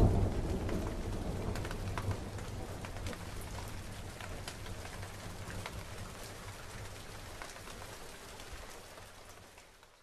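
Rain falling, with many separate drops heard as short ticks, and a low thunder rumble dying away in the first couple of seconds. The whole sound fades out steadily and ends near the end.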